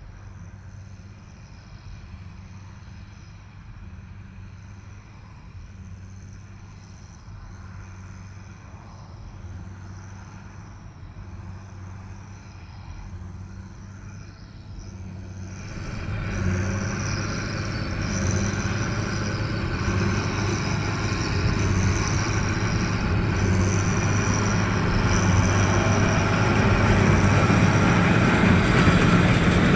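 Diesel tractor engine running steadily under load, pulling a baler, growing louder from about halfway through, with a faint high whine in the louder part.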